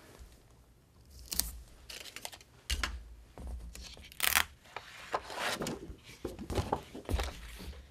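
A glossy photo print being handled: stiff paper rustling and flexing, with a few sharp crackles as tape is pressed on and the print is lifted and flipped. The loudest crackle comes about four seconds in.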